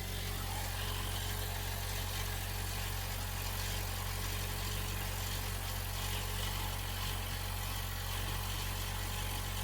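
2019 Jeep Wrangler's 2.0-litre turbocharged four-cylinder engine idling steadily.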